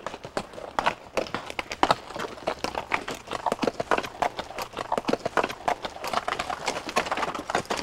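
Horses' hooves clopping on rock as two horses climb a rocky trail: a quick, irregular run of overlapping hoof strikes.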